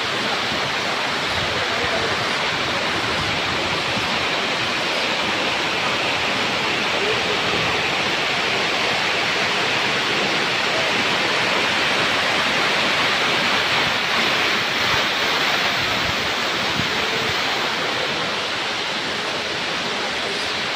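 Steady rush of flowing water from a waterfall and rocky stream, even in level throughout.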